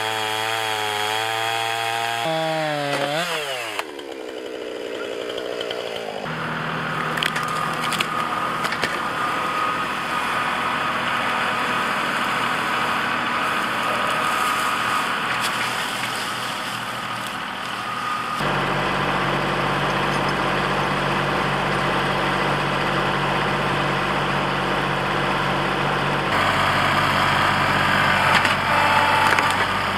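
Gas chainsaw running at full throttle through a tree trunk, its pitch bending and dropping from about two seconds in. After about six seconds a small tractor engine runs steadily under load as it drags the cut log and treetop, getting deeper and louder past the middle.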